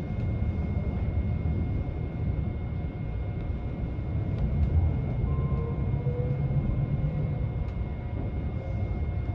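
Tobu Spacia limited-express train running, heard from inside the passenger cabin: a steady low rumble with a thin, constant high tone over it.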